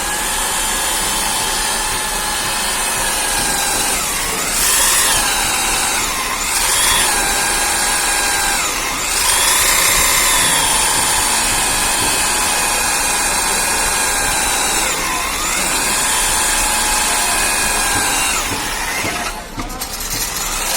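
Bosch diamond core drill running, a steady high motor whine whose pitch sags and recovers several times, with a brief dip near the end.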